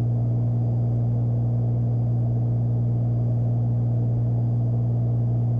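Beechcraft Bonanza's six-cylinder piston engine and propeller droning steadily in flight, heard inside the cabin as a constant low hum.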